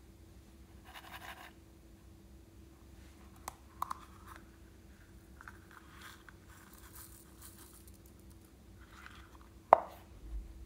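Handling of a silicone coin purse with a metal frame at its mouth: soft rustling and a few light clicks, then one sharp snap near the end as the metal frame closes.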